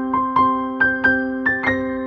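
Background music: soft piano or electric-piano melody of evenly paced notes, about four a second, over held chords.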